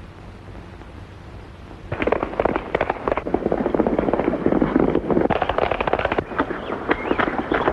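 Faint film-soundtrack hiss, then about two seconds in a rapid, overlapping volley of gunshots from several guns begins and keeps going.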